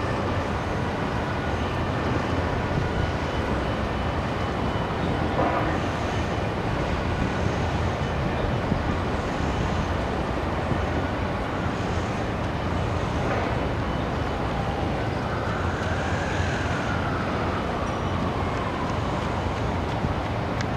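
Boeing Jetfoil 929-115 hydrofoil ferry's gas turbines and waterjet running: a steady rush of noise with a low hum and faint high whines. About fifteen seconds in, a whine rises slightly and then slides down in pitch.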